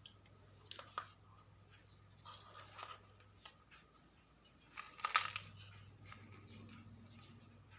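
Scattered rustling and scratching from a cat playing, with the loudest cluster about five seconds in, over a faint steady hum.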